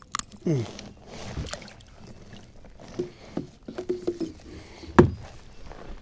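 Hollow knocks and clunks on a plastic pedal kayak (Old Town Sportsman 120 PDL) as a freshly landed bass and a fishing rod are handled aboard. The knocks are irregular and ring briefly, with the loudest one about five seconds in.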